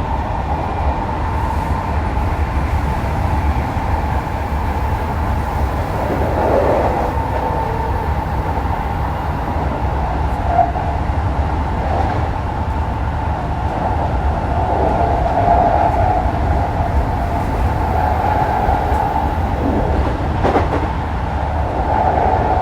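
Keikyu New 1000 series electric train heard from inside its motor car while running between stations: a steady rumble of wheels on rail, with the hum of the Toyo hybrid SiC VVVF inverter and traction motors over it.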